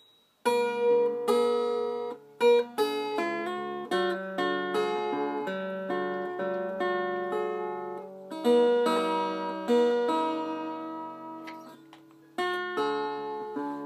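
Ukulele being strummed and picked, playing a tune in chords and single notes that ring out and fade. It starts about half a second in and dips briefly near the end before picking up again.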